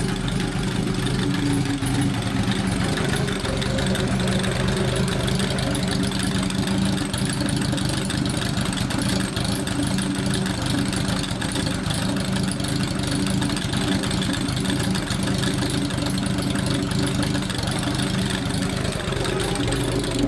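Customised Kawasaki Z1 900 Super Four's air-cooled inline-four engine idling steadily, with no revving.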